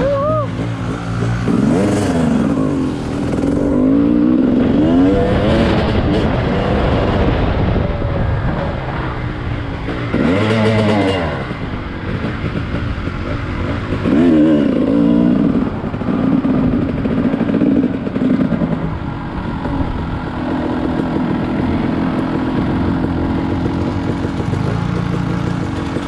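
A vehicle engine running, its pitch repeatedly rising and falling back as it revs up and eases off every few seconds.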